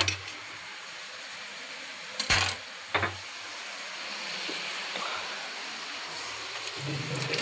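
Two short clanks of kitchen utensils, under a second apart, over a steady hiss.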